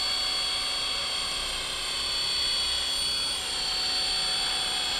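ALIGN 500 DFC electric radio-controlled helicopter hovering, a steady high-pitched whine from its motor and rotor.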